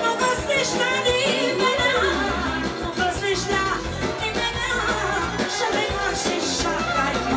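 Live Romanian lăutari band music at a steady loud level: accordion, clarinet and drums playing a brisk tune, with a woman singing.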